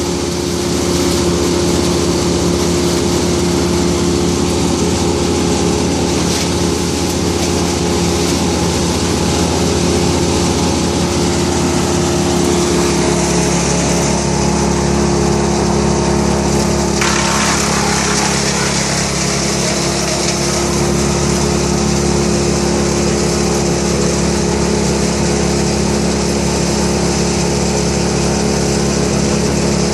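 A small petrol engine running steadily at an even pitch. Its note shifts slightly about twelve seconds in, and a hissing noise joins it about five seconds later.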